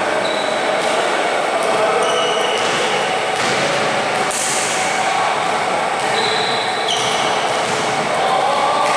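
Basketball game play in a reverberant gym: the ball dribbling and sneakers squeaking several times in short, high chirps on the court floor.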